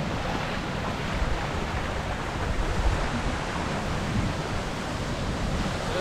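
Steady rushing of a waterfall and the stream running out of its gorge, with gusts of wind buffeting the microphone, strongest about three seconds in.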